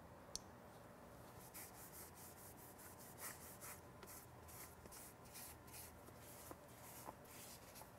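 Faint, quick rubbing strokes of a ceramic-coating applicator pad wiped over a Brembo brake caliper, repeating a few times a second.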